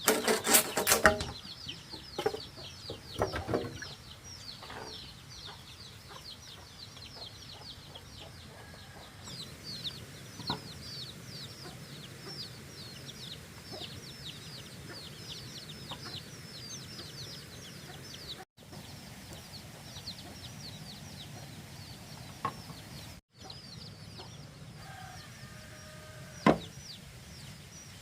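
Chickens calling: a long run of short, high-pitched, falling peeps, several a second. A few rasping saw strokes on wood open it, and there is one sharp knock near the end.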